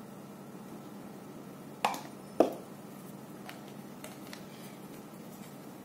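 Two sharp knocks about half a second apart, a plastic hair-dye mixing bowl being set down on a table, followed later by a faint click, over a low steady hum.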